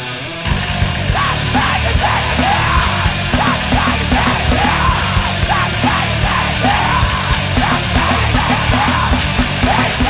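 Heavy rock music with screamed vocals: the full band comes in loud about half a second in, with distorted guitars and drums under repeated yelled lines.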